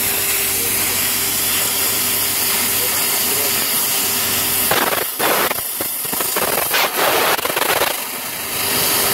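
Fiber laser cutting machine working sheet steel: a steady hiss of the cutting head's gas jet over a steady machine hum. About halfway through, the hum drops out and a few louder, uneven gusts of hiss follow as the head moves on and starts the next cut. The steady hiss and hum come back near the end.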